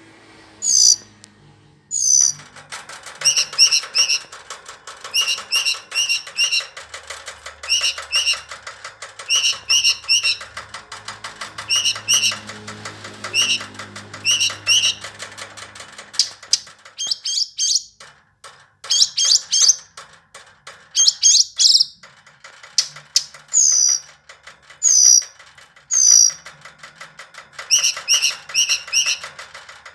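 Verditer flycatcher singing: a run of repeated short, high chirps and quick falling whistled notes, in bursts with brief pauses. A fast, dense ticking chatter sits underneath through the first half.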